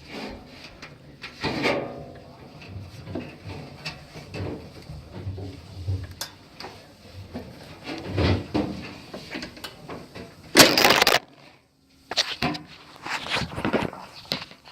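Washer drive parts being handled during a belt tensioner repair: irregular knocks, rattles and scraping. A short, loud rushing burst comes about ten and a half seconds in, and the sound cuts out for a moment right after it.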